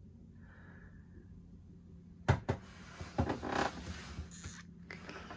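Handling noise in a wooden boat's forepeak: a sharp knock about two seconds in, then a short creak and a few clicks, typical of a wooden locker door being opened.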